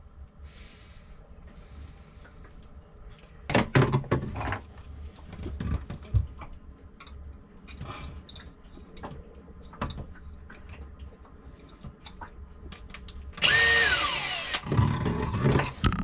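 Cordless drill running briefly near the end, its motor pitch falling as it winds down, after several seconds of quiet knocks and clicks of tools and parts being handled in a cramped boat bilge, with a louder clatter about four seconds in.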